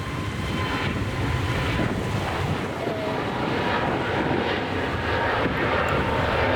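Jet engines of a departing Airbus A321 airliner: a steady, dense rumble that grows slowly louder, with a faint steady whine above it.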